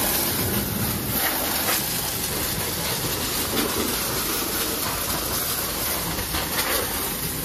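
Pressure washer jet spraying water against a mud-caked tractor's wheel and engine bay, a steady hiss of spray.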